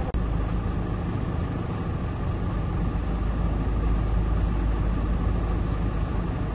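Heavy engine running steadily with a low rumble. The sound drops out for an instant just after the start.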